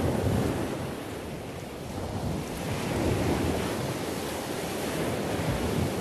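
Sea surf washing up a sandy beach: a steady rush that swells twice, just after the start and again about three seconds in.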